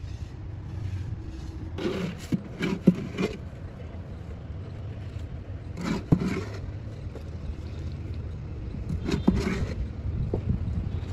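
Wet cement mortar scooped up and slapped into a wooden mould by hand: three short bursts of scraping and sharp knocks over a steady low rumble.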